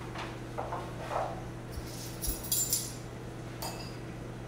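A metal spoon scraping and clinking against a mustard jar as grainy mustard is spooned out: soft scrapes first, then a quick cluster of sharp clinks about two seconds in and one more a second later.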